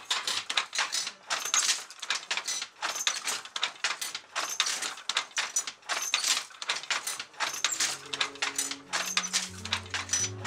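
Wooden handloom clacking as it weaves: a rapid, uneven run of sharp knocks from the shuttle and the beater striking the cloth. Background music with low held notes comes in about three quarters of the way through.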